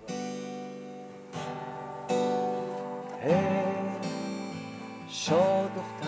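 Acoustic guitar strummed in chords, joined about three seconds in by a man singing, each sung phrase sliding up into a long held note.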